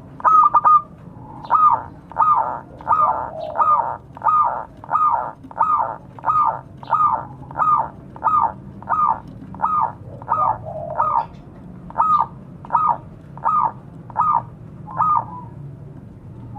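Zebra dove (perkutut) calling: a long run of short cooing notes, about two a second, stopping about a second and a half before the end.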